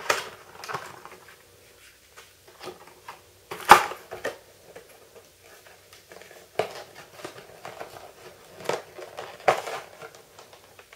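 Laminated cardboard packaging being handled and pulled apart by hand: irregular crackles, rustles and knocks, the loudest about four seconds in.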